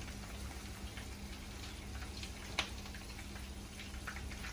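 Shell-on shrimp deep-frying in oil in a skillet: a faint, steady sizzle with scattered light clicks and pops, one sharper click about two and a half seconds in, as the shrimp are lifted out with tongs.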